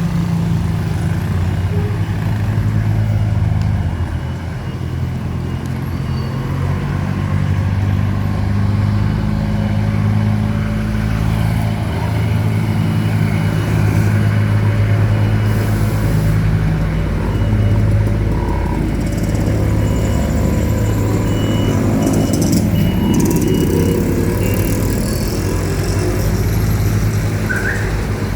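A motor vehicle's engine running steadily, loud and low-pitched, over street noise.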